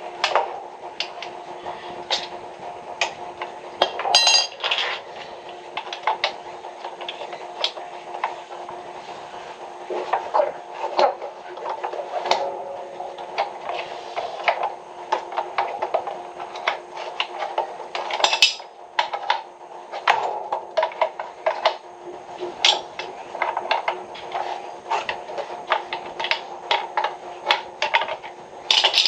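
Irregular clinks and knocks of hard tools and fittings being handled during a water-pipe leak repair, over a steady hum.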